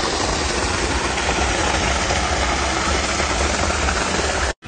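Storm water pouring down like a waterfall and splashing onto pavement: a loud, steady rushing noise with a deep rumble. It cuts off abruptly just before the end.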